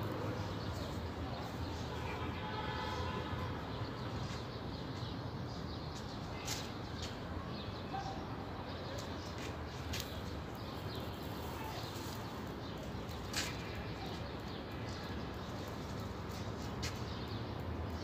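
Steady outdoor background noise with faint bird calls and a few short, sharp clicks.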